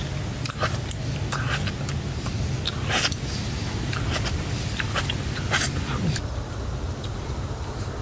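Close mouth sounds of a man eating from his cupped hands: an irregular run of wet smacks, sucks and clicks, the loudest about three seconds in and again near five and a half seconds. Underneath is a steady low rumble.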